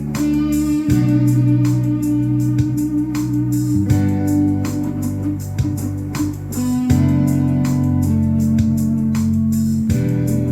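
Instrumental music practice: a guitar playing sustained chords over a steady beat, the chord changing about every three seconds.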